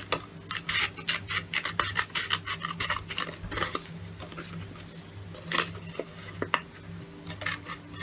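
Scissors snipping through folded brown construction card in an uneven series of short cuts, the paper rustling between snips, with one louder snip about five and a half seconds in.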